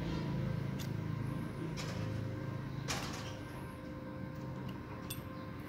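A few faint, short metallic clicks as a gate-wheel bearing in its steel housing is handled and turned in the hands, over a steady background hum.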